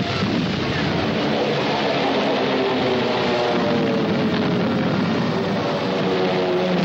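A warplane's engine over a dense, steady noise, its pitch falling slowly over several seconds.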